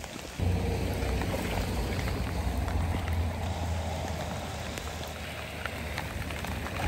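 Rain falling on shallow, flowing floodwater, with scattered drop ticks; a low steady rumble comes in about half a second in and runs on.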